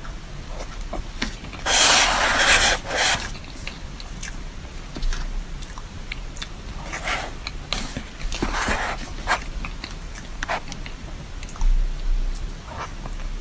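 Close-miked eating of a soft dessert: bites and chewing with small wet clicks, louder about two seconds in and again around seven and nine seconds.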